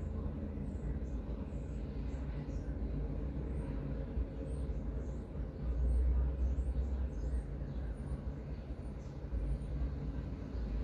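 Alienware 17 R4 laptop's cooling fans running steadily during a reboot after a BIOS flash: a constant whir over a low rumble that swells about six seconds in.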